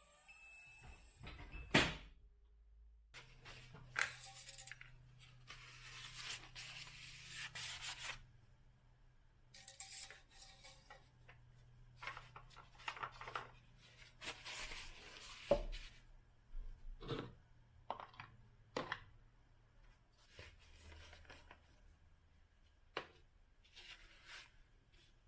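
Intermittent rustling and rubbing, broken by scattered sharp knocks and clicks, the loudest about two seconds in and again near the middle: hand work with parts and tools on the car.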